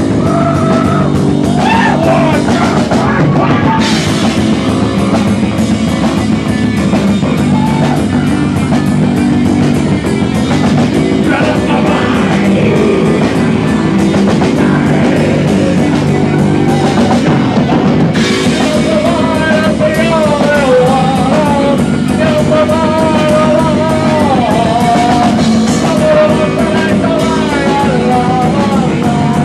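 Rock band playing live: electric guitar, bass guitar and drum kit, loud and unbroken, with singing over it that is clearest in the second half.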